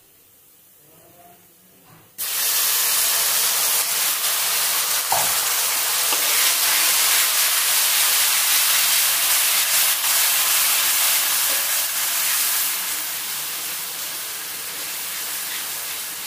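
Tomato purée hitting hot oil and browned onions in a pan: a sudden loud sizzle about two seconds in, then a steady sizzle that slowly eases toward the end.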